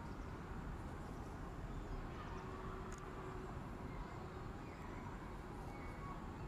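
Faint steady outdoor background noise, with a few faint short chirps scattered through it.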